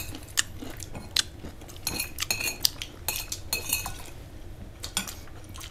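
Cutlery clinking and tapping against dishes: a scattering of small clicks, with a few brief ringing clinks about two and three and a half seconds in.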